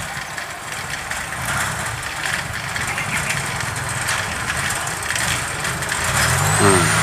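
Engine of a tracked rice harvester running steadily while it works to pull a bogged combine out of deep mud.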